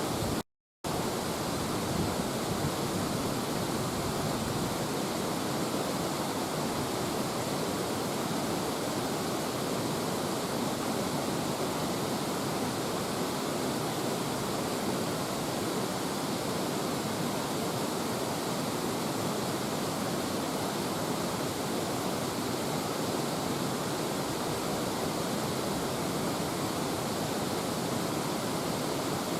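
Mountain river rushing: a steady, even wash of water, broken only by a moment of silence just under a second in.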